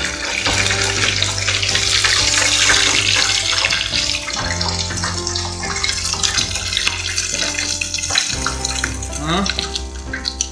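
Hot oil sizzling steadily as breaded, cheese-stuffed onion rings deep-fry in a pan, with background music of held notes under it. The sizzle is strongest in the first few seconds.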